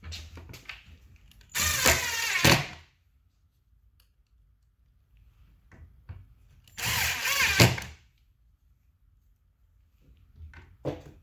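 Power drill driving screws into the cabinet's brackets in two bursts of about a second each, with a few light handling clicks between.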